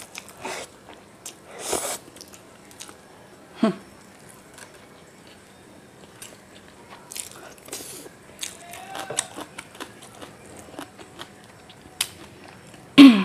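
Close-miked eating: chow mein noodles slurped in and chewed, with wet mouth sounds and small scattered clicks. A brief loud voiced sound comes just before the end.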